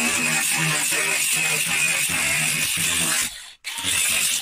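Cordless angle grinder running against the car's rusty steel sill, a steady high whine over a rough grinding noise. It cuts out a little after three seconds, then runs again briefly near the end.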